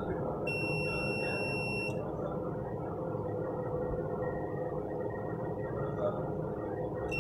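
Digital clamp meter's continuity buzzer beeping: one steady high tone about a second and a half long, starting about half a second in, with another beginning right at the end. The beep shows the iron's power-cable conductor is unbroken.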